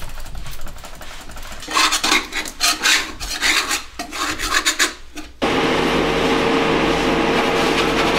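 Hand scrubbing and scraping with a rag or brush on baseboard and floor: rapid, irregular rasping strokes, strongest in the middle. About two-thirds of the way through it cuts abruptly to a steady mechanical hum.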